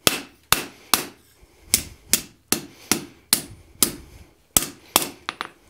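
Hand hammer striking a hot 3/8-inch square mild steel bar on an anvil: a dozen or so sharp blows at about two a second, with a slightly longer pause a little past the middle.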